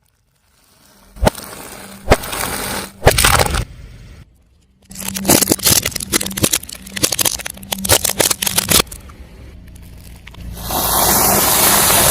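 Objects being crushed under a car tyre: a few sharp cracks, then a dense run of crunching and crackling that lasts several seconds, followed near the end by a steady hiss.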